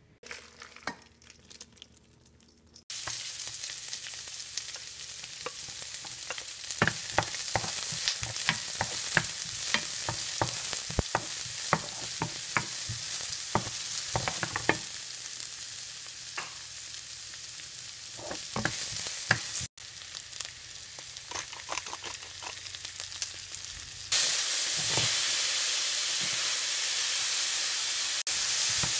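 Chopped onion, garlic and chilli sizzling in hot oil in a ceramic-coated pan, stirred with a wooden spoon that clicks and scrapes against the pan. After a few soft knocks the sizzling starts about three seconds in, and it gets louder in the last few seconds, when sliced green vegetables are in the pan.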